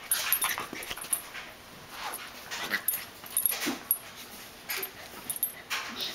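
A West Highland White Terrier and a Wheaten terrier puppy play-fighting, making several short dog noises among quick clicking and scuffling sounds.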